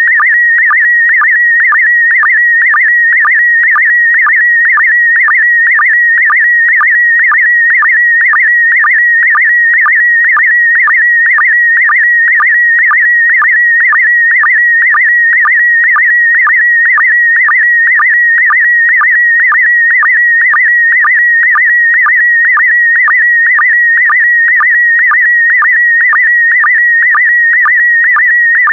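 Slow-scan TV (SSTV) image transmission in PD120 mode: a steady, slightly warbling tone near 2 kHz carrying the picture's brightness and colour data, broken by short lower-pitched sync blips about twice a second, one for each pair of scan lines.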